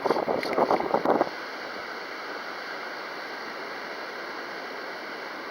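Wind buffeting the microphone in loud, ragged gusts that cut off about a second in, leaving a steady rush of wind.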